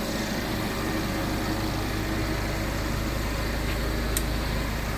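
A machine running steadily with a low hum, like an idling engine, with a faint click about four seconds in.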